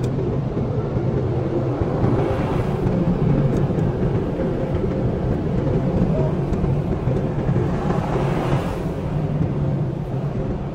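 Automatic car wash running, heard from inside the car: a steady low rumble of its motors and spinning brushes, with two brief swells of higher hiss, about two seconds in and near the end.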